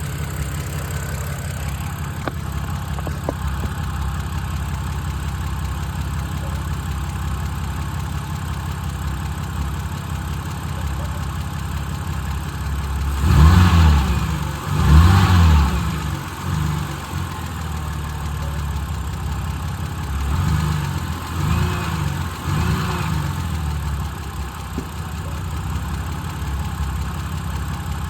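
2007 BMW 328i's N52 straight-six idling with a tick, revved in two quick blips about halfway through and three lighter blips a few seconds later. The owner is unsure whether the tick is the N52's well-known lifter tick or early rod knock.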